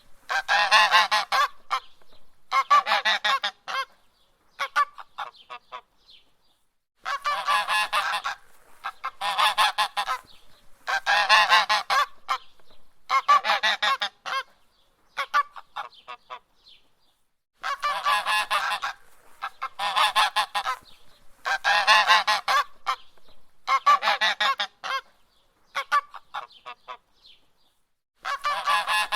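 Goose honking: rapid honking calls about a second long each, in runs of three or four with short breaks between them. A silent pause of a second or two separates the runs.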